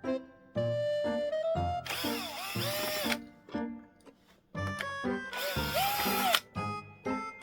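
A small power tool motor runs in two bursts of about a second each, its pitch rising and then falling in each, over background music with short keyboard-like notes.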